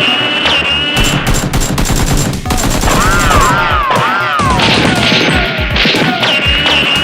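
Rapid bursts of automatic-gunfire sound effects over background music, with wavering, swooping tones in the middle.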